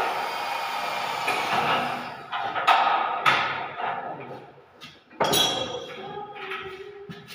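Cordless drill whirring for about two seconds as it drives a screw into a door frame, then a few sharp knocks, the loudest about five seconds in, as the door is handled.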